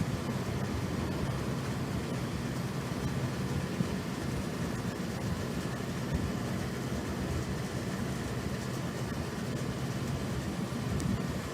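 Steady low rumble of distant engine noise, with no single event standing out.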